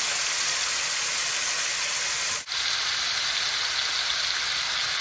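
Sauce sizzling and bubbling around chicken thighs in a hot cast iron skillet, a steady hiss that briefly drops out about halfway through.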